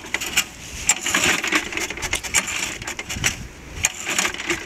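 A walk-behind lawn mower's recoil starter being pulled again and again, the cord whirring and the engine turning over with rattles and clicks but not catching. The engine is taken to be flooded.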